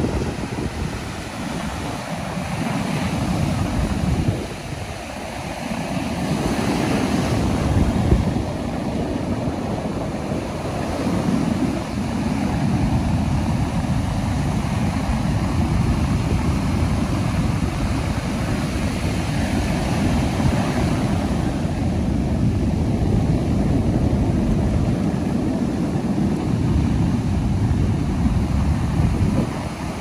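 Ocean surf breaking and washing up a sandy beach: a continuous deep rush that swells and eases as each wave comes in.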